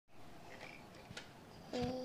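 A toddler starts a steady, held vocal sound near the end, at the same moment as a soft low thump; a faint click comes a little earlier.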